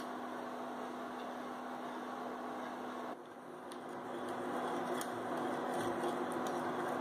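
Coil-spring whisk stirring a hot chocolate mixture of melted butter, sugar and cocoa in a steel saucepan, with light metal clicks against the pot in the second half, over a steady hum.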